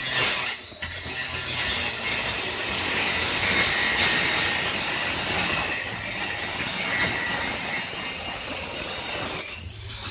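Electric angle grinder running against a ceramic floor tile with a steady, high-pitched grinding whine. Its pitch drops near the end as the disc comes off the tile.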